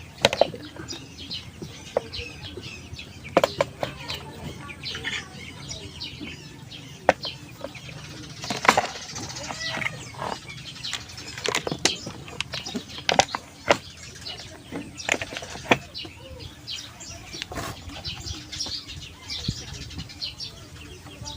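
Sharp, irregular clicks and knocks of tools and fan parts being handled while an exhaust fan's screws are taken out. Birds chirp throughout in the background.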